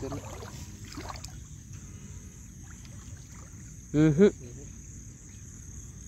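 Steady high-pitched chirring of night insects over faint sloshing of river water stirred by wading, broken about four seconds in by a short loud call from a person's voice.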